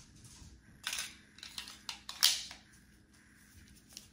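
A few sharp metal clicks and clacks from a Girsan Regard MC, a Beretta 92-style pistol, and its magazine being handled together in gloved hands. There is one click about a second in, a cluster around two seconds in with the loudest among them, and small clicks near the end.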